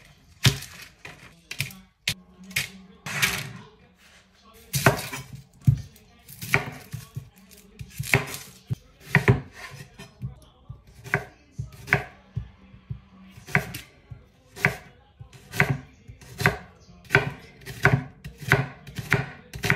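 A long series of sharp knocks, about one a second and sometimes two close together, each with a short low ring after it.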